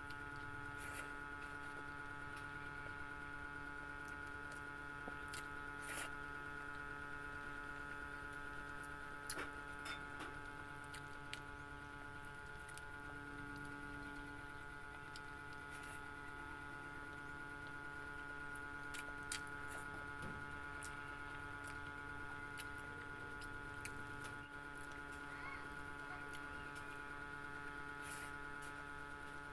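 Close-up eating sounds: fried tofu and rice chewed with scattered wet mouth clicks and lip smacks, over a steady electrical hum.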